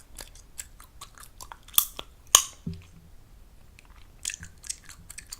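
Chewing gum, chewed fast and wet right at the microphone: a run of quick smacking clicks, with two loud snapping pops about two seconds in and another cluster of pops near the end.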